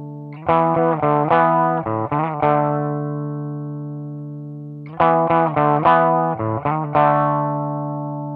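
Electric guitar played through a Line 6 Pocket Pod amp modeler: a quick phrase of chords about half a second in, left to ring and fade, then the phrase again about five seconds in.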